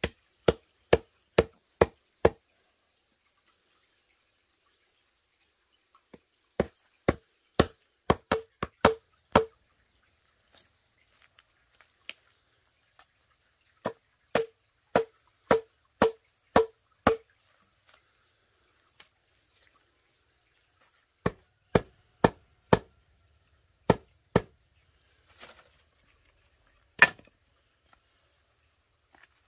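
Blade chopping bamboo: sharp strikes, each with a short ringing knock, in bursts of five to eight blows about two a second with pauses of several seconds between, and one harder single blow near the end.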